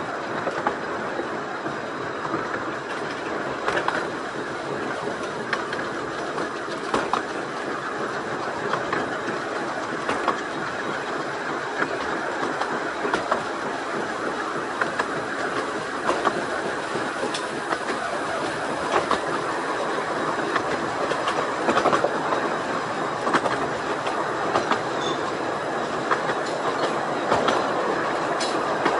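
Carriages of a 15-inch gauge miniature railway train rolling along the track: a steady running noise of wheels on rails, with irregular sharp clicks over the rail joints.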